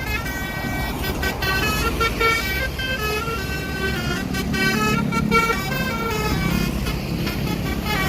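A bus's basuri multi-tone air horn playing a tune, its notes stepping quickly from pitch to pitch, over the low rumble of running engines.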